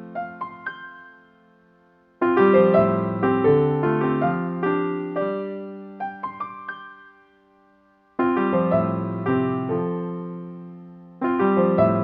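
Background music: a light, upbeat piano tune played in short phrases that fade out and start again, about 2 s, 8 s and 11 s in.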